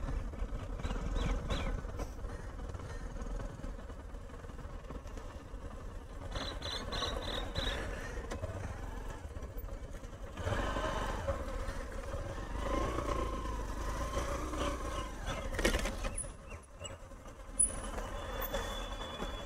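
Motorcycle engine running at low speed as a steady low hum, with other mixed noise growing louder about ten seconds in.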